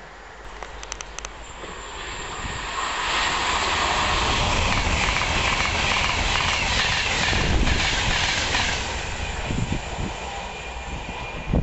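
Virgin Class 390 Pendolino electric train passing through at speed on the near line: its noise builds over about two seconds, stays loud for about five, then fades away.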